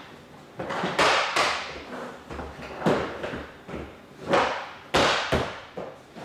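Interlocking ABS plastic floor tiles being laid and dropped down onto one another's clips: about six sharp clacks and thuds with some scraping of plastic between.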